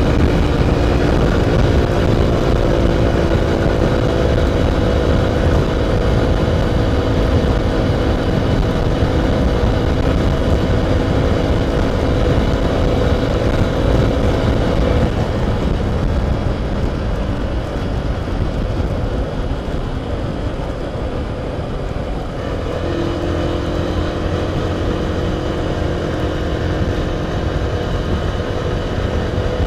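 Yamaha YBR motorcycle's single-cylinder engine running on the move, with heavy wind noise on the camera. The engine note fades about halfway through and comes back a few seconds later.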